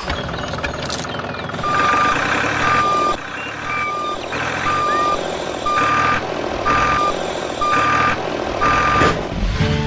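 Vehicle reversing alarm beeping about once a second, eight beeps, over steady background noise.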